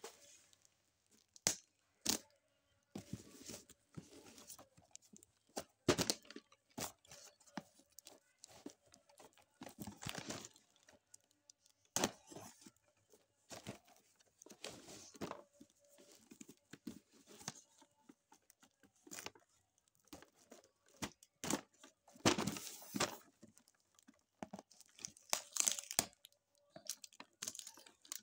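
Packing tape and cardboard being torn off a plastic-wrapped parcel, with the plastic wrap crinkling, in irregular rips and rustles of varying loudness; the loudest rip comes about 22 seconds in.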